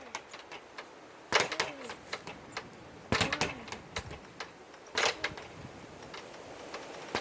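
Speed bag being punched, rattling against its rebound board in quick runs of knocks, three times about two seconds apart.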